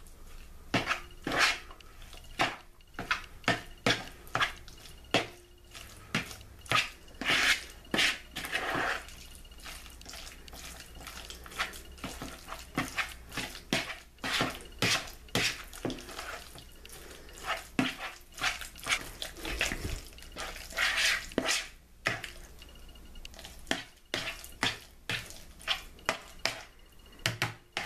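Metal spoon stirring chopped hard-boiled eggs with mayonnaise and mustard in a mixing bowl: irregular clicks and scrapes of the spoon against the bowl, about one or two a second, with wet sounds from the mix.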